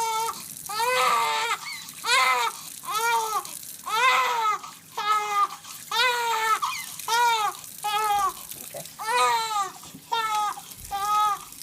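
Newborn baby crying in a steady run of short, high wails, each rising and falling in pitch, nearly two a second.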